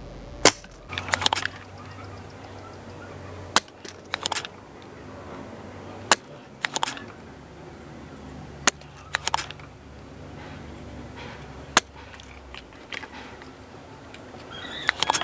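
Spring-loaded desoldering pump (solder sucker) fired five times, each a sharp snap as the plunger releases, followed by a short run of clicks as it is pushed back down and cocked, roughly every two and a half to three seconds. It is sucking solder off a volume potentiometer's pins, and the user finds its suction has become weak.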